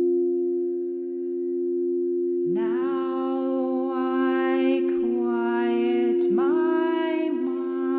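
A steady drone of sustained low tones, with a woman's voice joining about two and a half seconds in, humming long held notes that each slide up into pitch.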